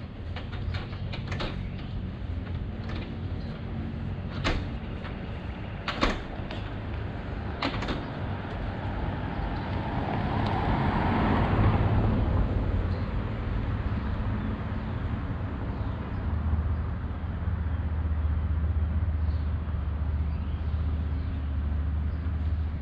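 Boots climbing an extension ladder, with sharp knocks on the rungs every second or two. Midway a vehicle passes with a rush that swells and fades, and a low hum carries on underneath, stronger near the end.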